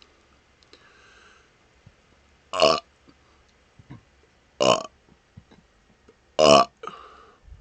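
Three short, loud burps, about two seconds apart, each with a clear pitch.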